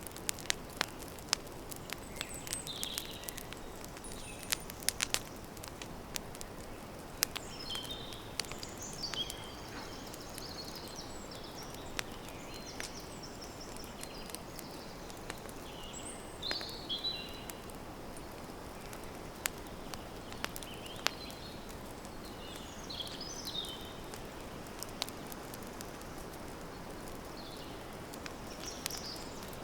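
Wood campfire crackling, with sharp pops that come thickest in the first half, over a steady hiss. Small birds chirp in short high phrases in the background.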